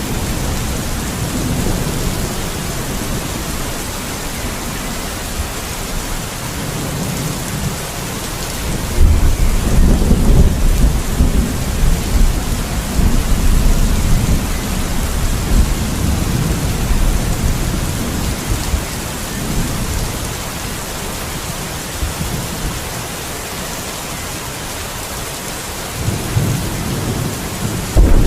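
Steady rain with rolling thunder: a loud, deep rumble swells about a third of the way in and rolls on for several seconds before fading back into the rain, and another rumble begins near the end.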